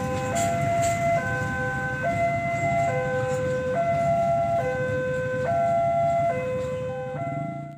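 Level-crossing electronic warning alarm sounding a repeating pattern of stepped tones, cycling about every one and a half to two seconds, over the low rumble of a freight train's flat wagons rolling past on the rails.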